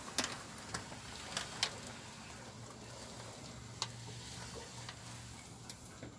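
Newspaper crinkling faintly under reticulated pythons' bodies as they shift on it: low crackling with a handful of sharp clicks, most of them in the first two seconds.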